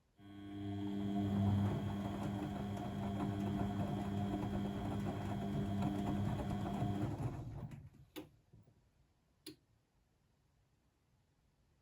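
Blomberg WAF 7442 SL washing machine's motor turning the drum during the wash, a steady hum for about seven seconds that then winds down and stops. Two sharp clicks follow about a second apart, during the pause before the drum turns again.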